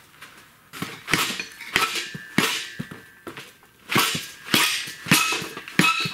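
A manual transmission being bumped with the feet onto a Kubota diesel's adapter plate: a series of about seven metal knocks and clanks, some ringing briefly, as the tight-fitting gearbox is forced into place.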